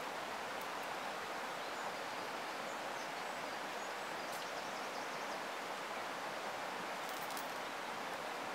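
Steady rushing hiss of river water pouring over a boulder weir into the pool, with a few faint high ticks near the end.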